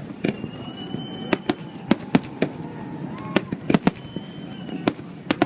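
Fireworks display: a rapid, irregular string of sharp bangs, with a few drawn-out whistles in between.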